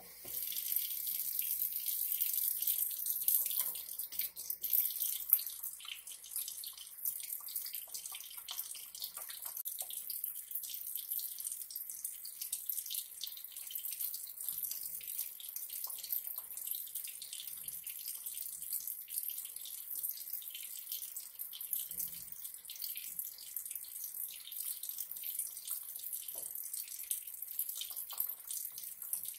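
Kitchen faucet turned on and left running, a steady stream of water splashing into the sink and over hands being lathered and rinsed beneath it. The water comes on right at the start and is a little louder for the first few seconds.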